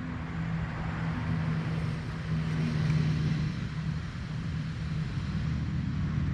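A steady, low engine drone, swelling a little about three seconds in, under a background hiss.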